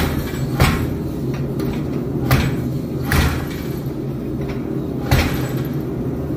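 Hammer blows on hot steel at the anvil, flattening a forged steel alligator: five strikes at uneven spacing, each with a short ring, over a steady low hum.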